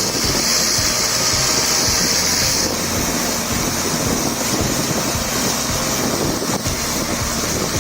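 A heavy stump-crushing machine runs under load, a steady mechanical rumble with a loud grinding hiss over it. The sound shifts abruptly about three seconds in, and the hiss eases somewhat.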